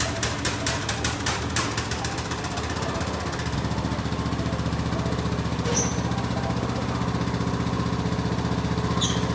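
Husqvarna ride-on lawn mower engine running: a rapid, even pulsing at first, then about three seconds in it changes to a steadier, fuller hum.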